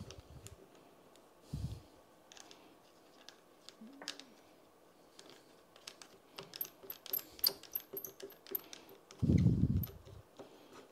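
Scattered light metallic clicks and clinks as parts of a bicycle repair stand are handled and fitted together, with a couple of dull low thumps, the loudest near the end.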